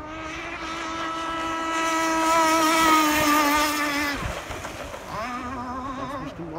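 Radio-controlled model racing powerboat running flat out across a lake with a high-pitched engine whine that grows louder, drops sharply in pitch about four seconds in, then comes back lower with a wavering pitch.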